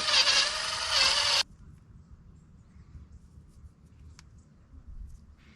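A power tool running with a steady whine, stopping abruptly about a second and a half in. Then only faint handling sounds, with a small click about four seconds in.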